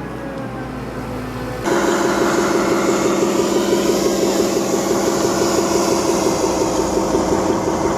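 Steady engine-like mechanical drone with a strong low hum, stepping abruptly louder about two seconds in and then running on evenly.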